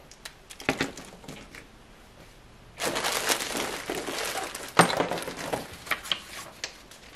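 A few light clicks and clinks of small parts being handled, then from about three seconds in a continuous crinkling and rustling of packaging.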